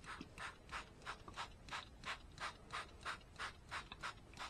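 Hand trigger spray bottle squirting water onto seed-starting mix in a tray. There are short, even spritzes at about three a second.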